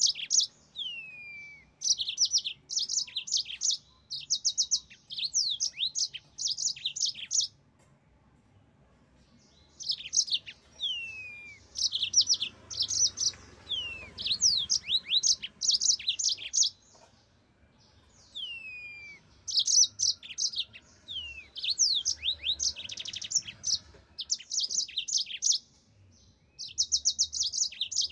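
Yellow-fronted canary singing in vigorous bursts of rapid, high trills and downslurred whistles, broken by two short pauses of about two seconds.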